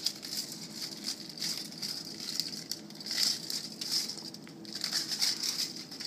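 Crinkling and rustling of the thin insulating wrapping and foil layers of an iPad 3 lithium-ion battery cell as they are unwrapped and peeled apart by hand, in irregular crackles.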